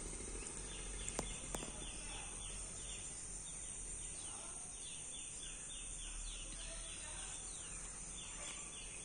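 Outdoor garden ambience: a steady high insect buzz with a quick run of short chirps, about three a second, pausing briefly near the end. Two faint clicks come about a second in.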